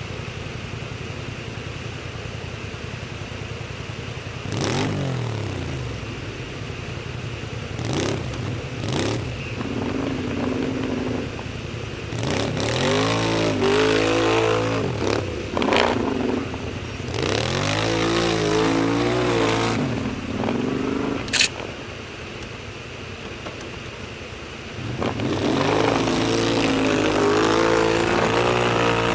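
Quad bike engines revving in repeated bursts over a steady idle, the revs rising and falling as a quad stuck in deep mud is worked to pull free. The longest, loudest rev comes near the end; a single sharp crack sounds about two-thirds through.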